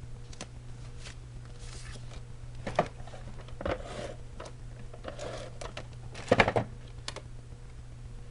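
Scrapbook papers being handled on a table: scattered light taps and clicks with a few short rustles, the loudest cluster of taps about six seconds in, over a steady low hum.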